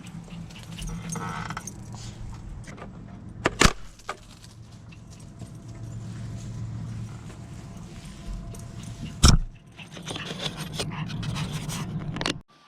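Two sharp knocks, about five and a half seconds apart, over rustling and a low steady hum.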